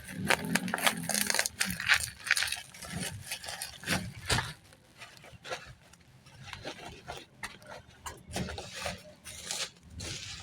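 Packaging being handled and opened: irregular scraping, rustling and clicking of a box and its wrapping.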